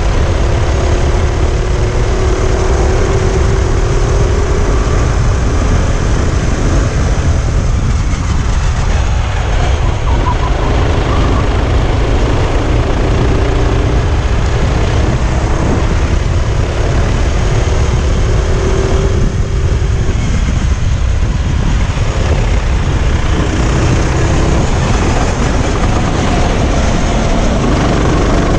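Onboard sound of a Sodi RT8 rental kart's engine at racing speed, its pitch climbing along the straights and dropping back twice, about 8 and 19 seconds in, as the kart slows for corners. Heavy wind rumble buffets the microphone throughout.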